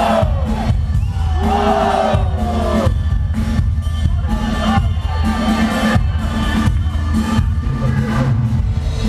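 Loud dance music with a heavy bass beat and regular drum hits, playing for a breakdance battle, with a crowd cheering and shouting over it.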